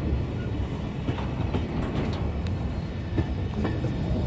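Container freight train wagons rolling past, a steady low rumble with scattered sharp clicks and clanks from the wheels on the rails.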